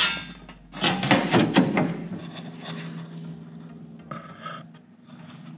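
Thin sheet-steel floor patch panel being handled and pressed into place against the cab floor, the metal rubbing and flexing. The loudest rubbing is in the first two seconds, with a shorter scrape about four seconds in.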